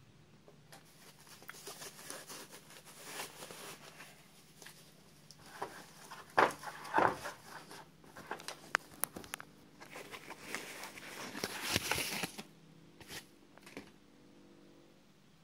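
Irregular rustling and crinkling of a thin foam packaging sleeve as a hair clipper is unwrapped by hand, with a few sharp clicks of plastic being handled. The rustling comes in louder bursts about six seconds in and again around eleven to twelve seconds.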